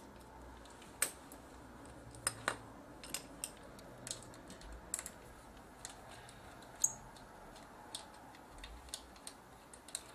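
Irregular light clicks and taps of a small screwdriver and screws as the screws holding a camcorder's power supply board are taken out, the sharpest click a little under seven seconds in.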